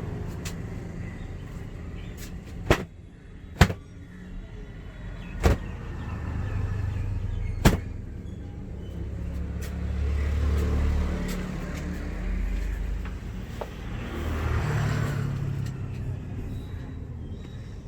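Road traffic rumbling past, swelling twice in the second half, with four sharp cracks or slaps spread over the first eight seconds.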